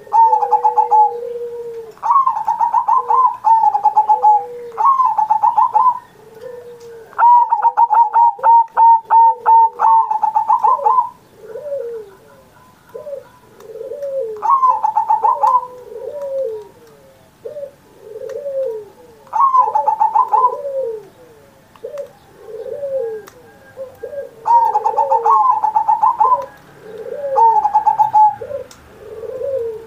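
Perkutut (zebra dove) in full song, giving loud rolling coo phrases again and again, one long rapid rattling phrase a few seconds in. A second, lower coo answers in a steady run of short notes beneath it.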